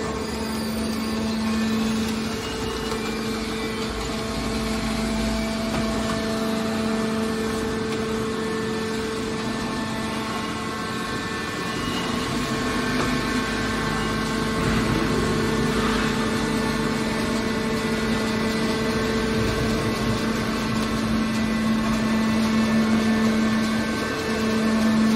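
Hydraulic scrap metal baler's electric-motor pump unit running with a steady mechanical hum at a constant pitch.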